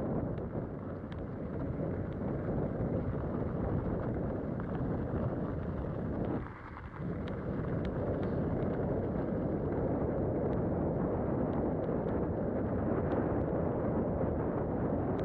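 Wind buffeting the microphone during a ride down a snowy trail: a steady noise with faint ticks, which drops away briefly about six and a half seconds in.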